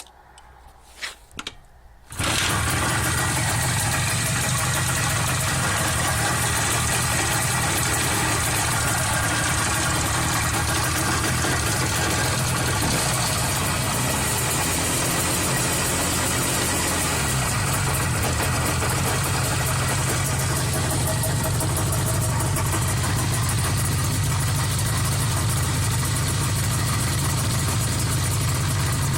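IZh Jupiter-5 motorcycle's twin-cylinder two-stroke engine, freshly overhauled with a new piston group, catching about two seconds in after a few short knocks and then running steadily at idle. Its low note shifts briefly about halfway through.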